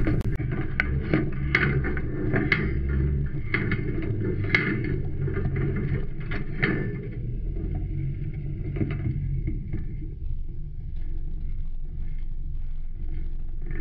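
Off-road 4x4 engine running with a steady low drone, picked up through the vehicle's body. Sharp irregular knocks and rattles come over the first half, then it settles to the drone alone.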